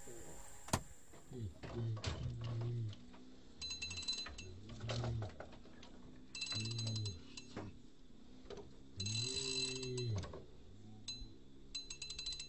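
Fishing reel being wound in short bursts, a quick run of ratcheting clicks about four times, with low murmured voices between the bursts and one sharp tap less than a second in.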